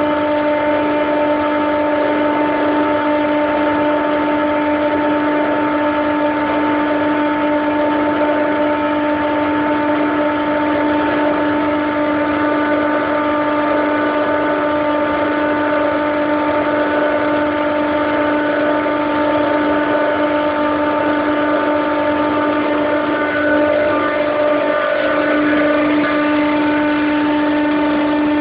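Daikin EWLDJ235-SS chiller compressor running with a steady, loud whining hum of several pitched tones, the strange sound the uploader is asking about. The lowest tone wavers briefly near the end.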